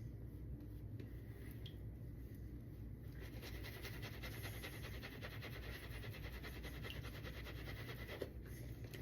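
Synthetic-knot shaving brush whipping a wet, water-heavy lather: a fast, squishy swishing of rapid strokes. It is faint at first, picks up about a third of the way in and stops shortly before the end.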